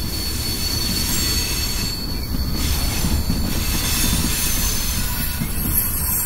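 CSX freight train's covered hopper cars rolling past: a steady low rumble of steel wheels on rail, with a thin, high wheel squeal over it.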